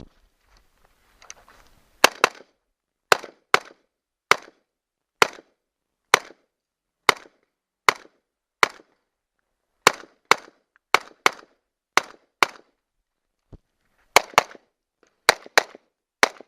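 A firearm fired in a string of about twenty shots on a timed practical-shooting stage, starting about two seconds in and coming roughly one every half second to a second.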